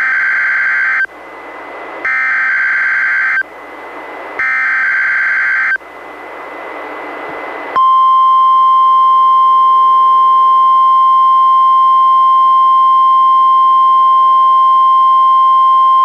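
NOAA Weather Radio alert signal through a weather radio receiver. First come three bursts of EAS/SAME header data, each a harsh two-pitch digital screech lasting about a second, with radio hiss between them. About eight seconds in, the steady single-pitch 1050 Hz warning alarm tone starts, sounding here as a test of the alarm.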